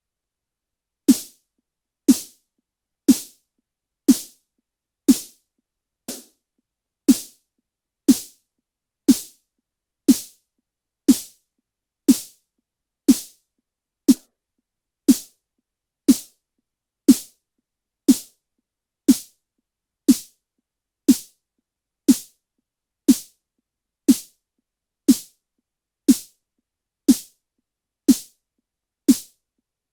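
Synthesized snare drum from Ableton's Operator synth, a short pitched body with a bright hiss on top, struck once a second after about a second of silence. One hit about six seconds in is much quieter than the rest.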